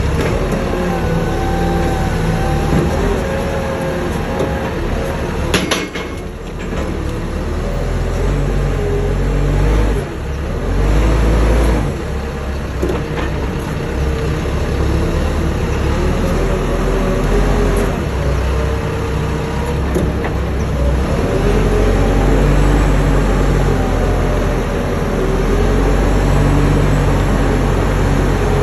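A lift truck's engine running steadily with a low rumble and a wavering whine as the forks work at a lumber stack, heard from the operator's cab; a sharp click about six seconds in, and the engine picks up briefly around ten seconds.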